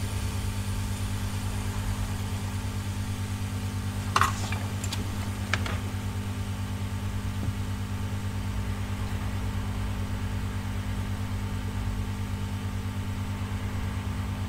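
A steady low electrical hum, with two brief light clicks about four and five and a half seconds in from the tools touching the circuit board during soldering.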